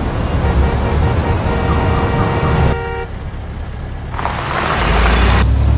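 Street traffic noise with a deep rumble and steady car-horn tones that stop about two and a half seconds in. About four seconds in comes a loud rushing whoosh, and a heavy low rumble follows.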